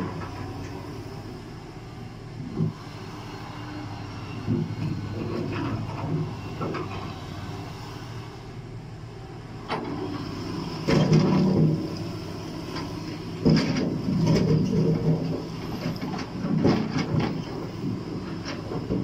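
Liebherr 944 crawler excavator running steadily as its bucket works through a pile of rock, with stones knocking and clattering now and then. The loudest clatters come a little past halfway and again a couple of seconds later.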